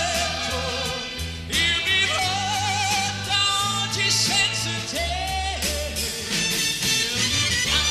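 A male pop singer sings a ballad, holding wavering notes with vibrato, backed by a live orchestra with a steady bass line and drums.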